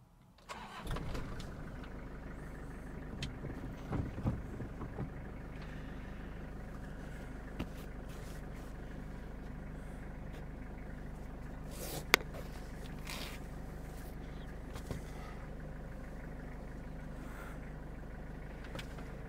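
A 1998 Toyota Toyoace's 3L 2.8-litre naturally aspirated diesel engine starting about half a second in, then idling steadily, heard from inside the cab. A few light knocks come around four seconds in, and a single sharp click about twelve seconds in.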